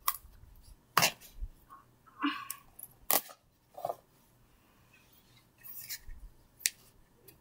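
Small clear plastic cup with a red base being handled: about five sharp plastic clicks and taps, with light rubbing and scraping between them.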